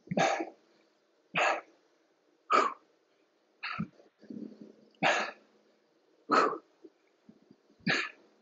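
A man's sharp, forceful exhalations, one about every 1.3 seconds in steady rhythm, each puff of breath marking a repetition of a strength exercise under effort.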